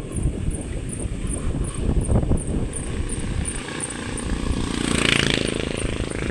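Wind rumbling on the microphone over a small engine running, heard from a moving motorcycle, with a brief louder rush about five seconds in.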